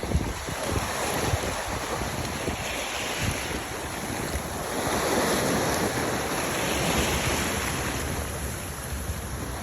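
Wind buffeting the microphone over the wash of sea waves, with the wash swelling up about halfway through.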